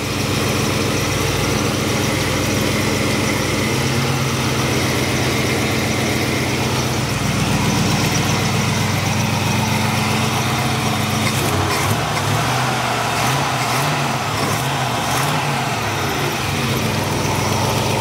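Chevrolet 350 small-block V8 crate engine with headers and glass-pack dual exhaust, idling steadily. It has a brief wavering in pitch a little past the middle.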